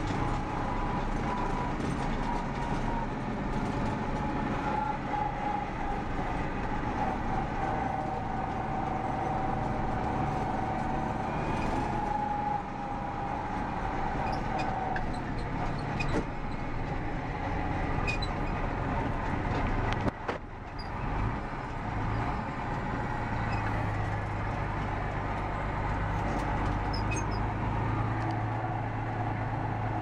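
MTZ-1221 Belarus tractor's six-cylinder turbodiesel running steadily on the move, heard from inside the cab, with scattered clicks and rattles. A whine falls slowly in pitch and fades about twelve seconds in, and the engine sound drops briefly about twenty seconds in before picking back up.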